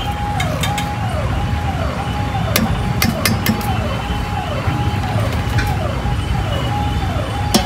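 An electronic siren repeats a held tone that drops in pitch, about twice a second, over steady low street-traffic rumble, with a few sharp clicks in the middle.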